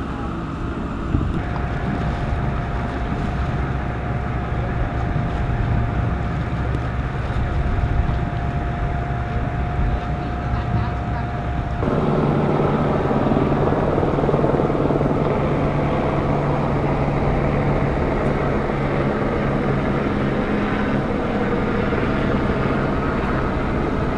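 Steady engine noise with a low hum, and a thin steady whine over the first half. About twelve seconds in the sound changes abruptly to a different, steadier engine hum.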